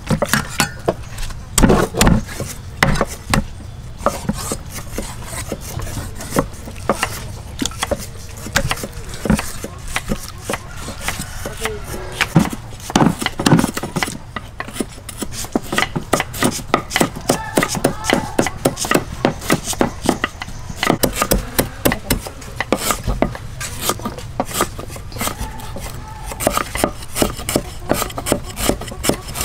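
Cleavers slicing lemongrass on wooden chopping boards: quick, uneven knocks of steel blade on wood, several a second, from more than one knife.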